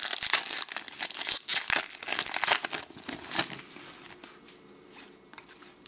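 Foil wrapper of a Topps Chrome baseball card pack crinkling and rustling as it is handled and torn. The crackle dies down after about three and a half seconds to a few light clicks.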